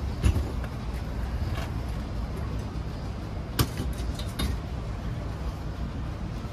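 A few knocks and clunks from a racing seat and its metal bracket being lifted and set down, the loudest just after the start and another sharp one about three and a half seconds in, over a steady low rumble.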